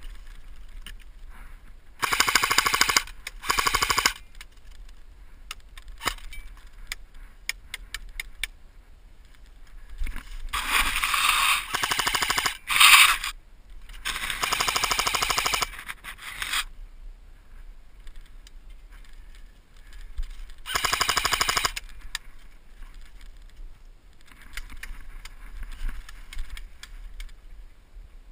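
Airsoft AK-74U rifle firing on full auto in several short bursts, each a fast rattle lasting one to two and a half seconds. A fainter burst comes near the end.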